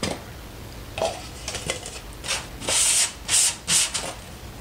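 Plastic cups handled against paper and paint-covered foam plates: a few light knocks, then four short rubbing scrapes in the second half.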